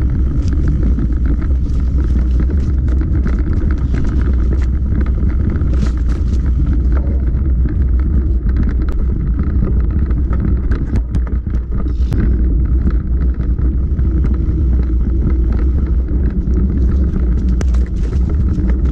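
A mountain bike ridden over a bumpy dirt path, with the camera mounted on the rider or bike: a steady heavy low rumble of wind and tyres on the microphone, broken by frequent sharp clicks and rattles from the bike.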